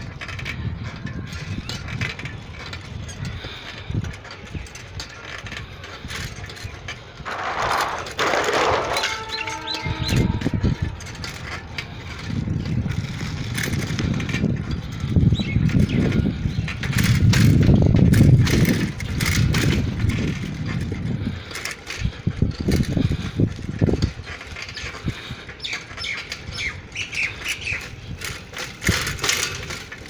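Outdoor road ambience picked up by a handheld phone while moving: an uneven low rumble that swells and fades several times, scattered sharp clicks, and a short hiss about eight seconds in.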